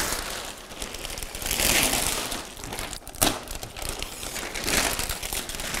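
Shiny plastic wrapping crinkling and rustling in irregular swells as it is torn and pulled off a large display panel, with one sharp click a little after three seconds in.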